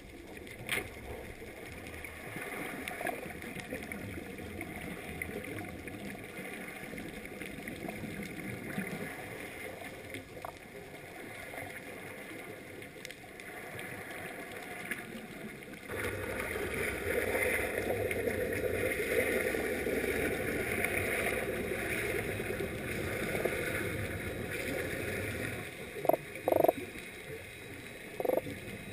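Underwater noise picked up through a GoPro's waterproof housing during a scuba dive: a steady rushing that gets louder about halfway through and stays up for some ten seconds. A few short sharp knocks come near the end.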